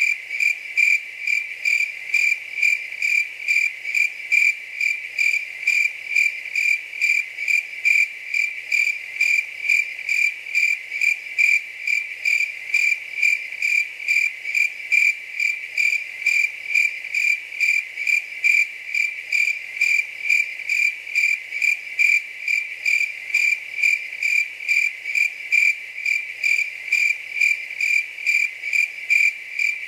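Cricket chirping steadily: a single high-pitched chirp repeated evenly, about two to three chirps a second, without a break.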